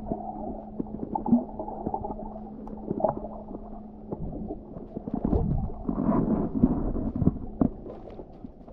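Muffled underwater sound picked up by a submerged camera: churning water and scattered knocks and clicks, with a steady low hum through the first half and a louder swirl of water near the middle.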